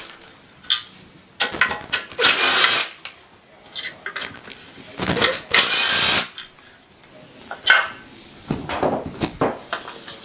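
Power screwdriver running in two short bursts of about a second each, backing out the screws of a dosing pump's motor cover, with clicks and rattles of handled parts between and after.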